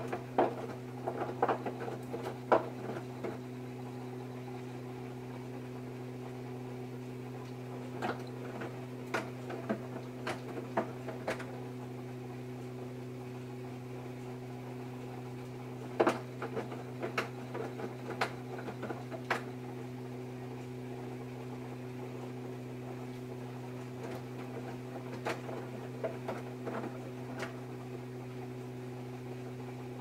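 Samsung front-loading washing machine mid-wash, its drum turning in spells about every eight seconds. Clothes tumble with clusters of clicks and knocks against the drum, over a steady low hum.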